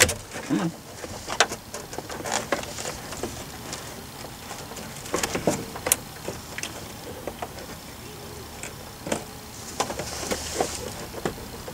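Scattered plastic clicks, knocks and rattles as a 2000–2002 Saturn S-series instrument cluster is worked and pulled straight out of the dashboard.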